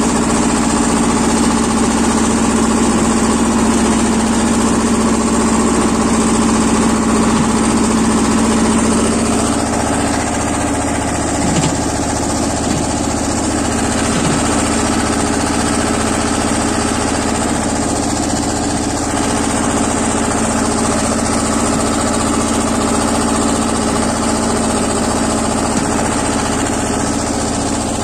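The diesel engine of a BJR F 3800 compact tractor, a Lombardini 5LD-825-2, runs steadily under load while the tractor tows a box scraper full of soil. Its note eases a little about nine seconds in.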